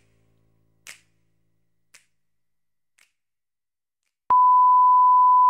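The end of a music track: three sharp clicks about a second apart, each quieter than the last, then a short silence. About four seconds in, a loud, steady test tone at a single pitch starts abruptly. This is a line-up tone like those at the end of a video tape.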